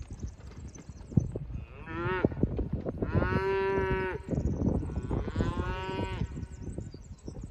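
A cow mooing three times: a short call about two seconds in, then two longer, drawn-out calls. Scattered knocks and thuds sound underneath.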